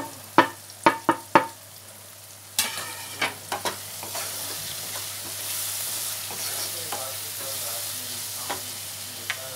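A few sharp taps of a wooden spatula, then the spatula scraping and stirring ground spices into onion and tomato frying in a nonstick pan, over a steady sizzle.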